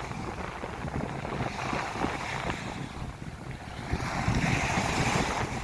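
Ocean waves washing onto a beach, the surf swelling and easing, with a louder wave breaking about four seconds in. Wind buffets the microphone throughout.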